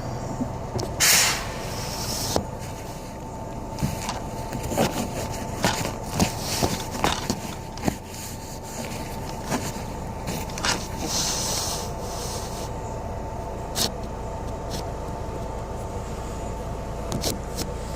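Inside a moving city bus: a steady drone of engine and road with many small rattles and knocks from the cabin fittings. A short loud hiss comes about a second in, and a softer hiss a little past the middle.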